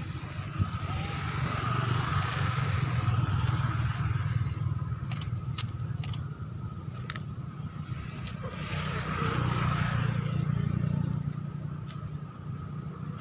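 Motor vehicles passing: a low engine and road rumble swells and fades twice. A few sharp clicks come in the lull between.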